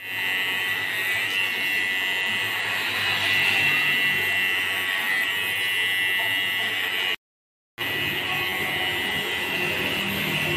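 Electric hair clipper buzzing steadily while cutting hair. The sound cuts out completely for about half a second around seven seconds in, then resumes.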